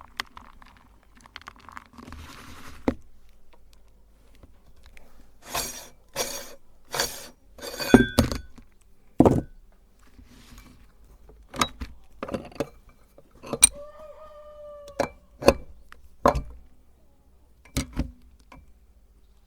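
Faint crunching and crackling for the first few seconds, then a string of separate clinks and knocks, with a short squeak about fourteen seconds in, from a meat grinder and chocolate being handled.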